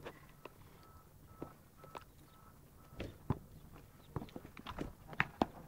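Irregular sharp taps and knocks, sparse at first and coming more often from about halfway through, over a faint outdoor background.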